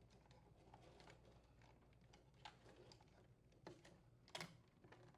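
Faint, scattered clicks and taps from plastic refrigerator ice-maker parts and a screwdriver being handled, the loudest a sharp click about four and a half seconds in.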